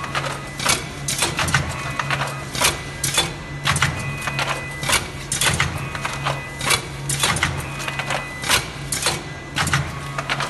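Linerless sleeve-applicating machine running, sliding punched sleeves onto flat packs: sharp mechanical clacks about twice a second, often in close pairs, over a steady low motor hum.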